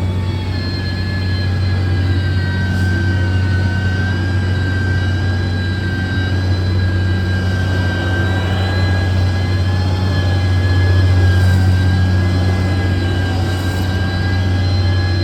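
Diesel engine of a heavy earthmoving machine running steadily under load, a deep drone with a steady high whine over it.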